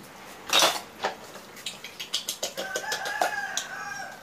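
A rooster crows once, one level call held for about a second and a half in the second half. Before it there is a loud brief scrape, then clicking as hands stir snails in an aluminium bowl.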